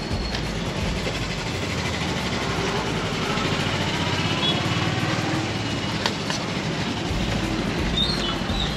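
Steady noise of street traffic, with a sharp click about six seconds in and a few faint high chirps near the end.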